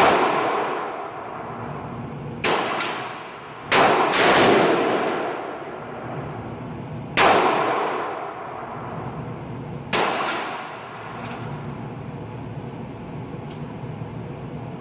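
Single rifle shots from an AR-15 in .223/5.56, about six of them spaced one to three seconds apart, each trailing off in a long echo.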